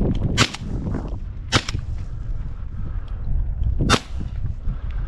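Three shotgun shots at a flying dove, the first two about a second apart and the third some two seconds later, with wind rumbling on the microphone between them. The dove is hit.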